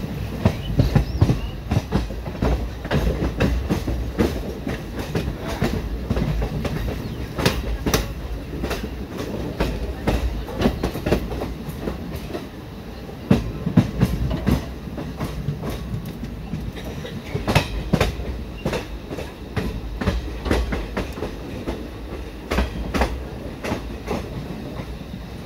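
Coach wheels of the Howrah–Chennai Mail Special running over track, with a steady low rumble and irregular sharp clacks as the wheels cross rail joints and junction points. Heard from the coach's open side.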